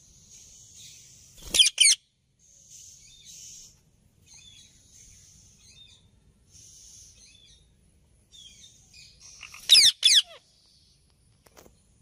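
Indian ringneck parakeets calling: a quick pair of loud, shrill screeches sliding down in pitch near the start, and another pair near the end, with softer high chirps and chatter in between.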